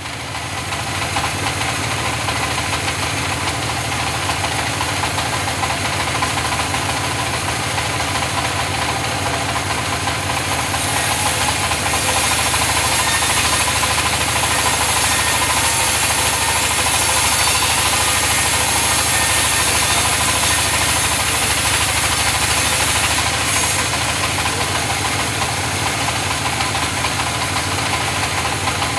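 Engine-driven wood saw running steadily while sawing mahogany, a constant engine drone under a hissing high end that grows brighter about ten seconds in and eases back near the end.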